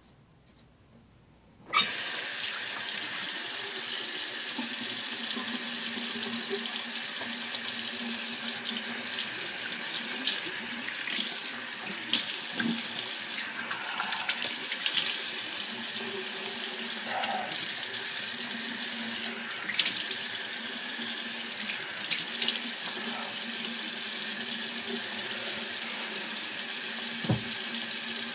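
Water running from a tap into a sink, turned on suddenly about two seconds in and running steadily, with a few brief splashes.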